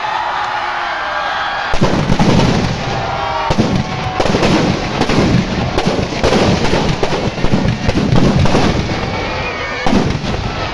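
Firecrackers packed into a burning Ravan effigy going off in a fast, irregular string of bangs and crackles. The bangs start about two seconds in and keep going, over a background of voices.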